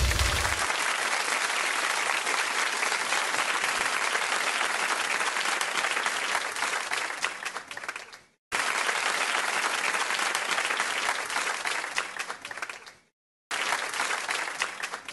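Audience applauding with dense clapping. It fades out about eight seconds in, starts again abruptly, and breaks off and resumes once more near the end.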